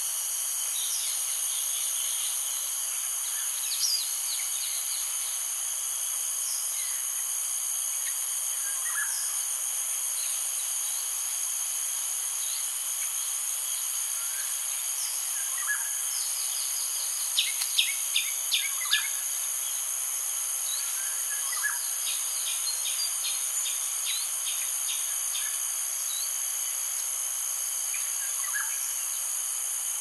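Insects ringing steadily at a high pitch, with scattered short bird calls over them. A quick run of five or six sharp bird notes about 17 seconds in is the loudest sound.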